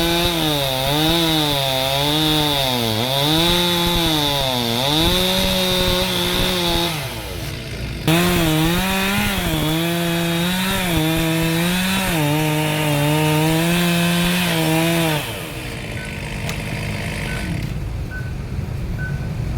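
Two-stroke chainsaw cutting into wood, its engine pitch repeatedly dipping under load and recovering as the chain bites. The saw drops away about 7 seconds in and comes back abruptly a second later. It stops after about 15 seconds, leaving quieter noise with a faint repeated tick.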